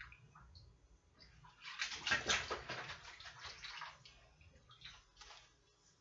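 Water splashing and sloshing in a kitchen sink as things are washed by hand, loudest from a bit under two seconds in to about four seconds, with scattered small clicks afterwards.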